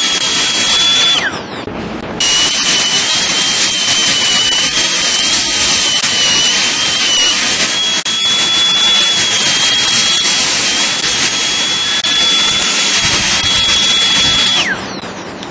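High-speed dental handpiece whining as its bur cuts a central incisor in a crown preparation. It winds down with a falling pitch about a second in, starts again a second later, and winds down again near the end.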